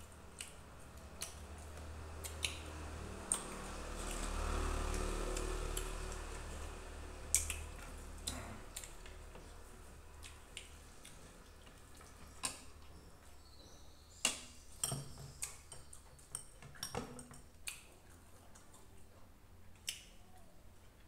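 Metal spoons clinking and scraping on plates as two people eat, in scattered sharp clicks. A low rumble swells and fades about four to six seconds in.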